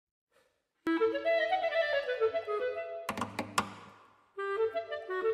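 Background music led by a clarinet playing a quick melodic line. About three seconds in come a few sharp strikes, the notes fade, and the melody picks up again about a second later.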